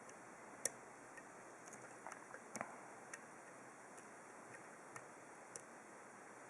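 Faint, scattered metallic ticks and clicks from a flag pick working the pins of a steel dimple padlock held under tension. They come irregularly: a sharper click just under a second in, a small cluster around two seconds, then single ticks every second or so.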